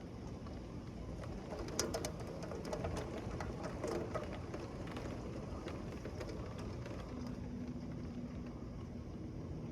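Heavy rain pouring steadily, with a run of sharp drip or splash ticks in the first half and a low steady tone in the last couple of seconds.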